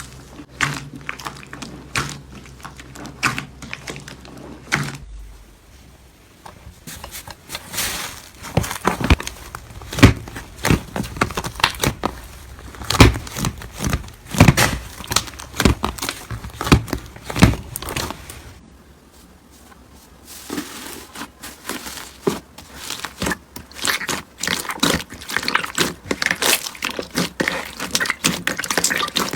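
Slime being squeezed, pressed and poked by hand, giving dense crackling, clicking and popping sounds typical of crunchy slime. The sound changes between a few short clips, with the loudest sharp pops in the middle.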